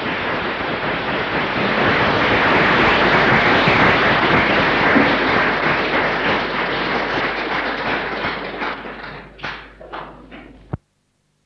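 Audience applauding after a lecture: the clapping swells to a full round, thins to a few scattered claps near the end, then cuts off abruptly as the recording ends.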